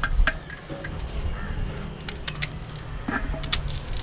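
Knife cutting through fresh spring onion bulbs held in the hand, a few crisp irregular cuts, with the slices dropping into an empty clay pot.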